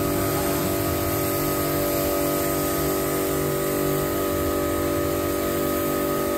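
Agaro 1800 W electric pressure washer running with the foam cannon spraying: a steady motor hum with a hiss of spray over it.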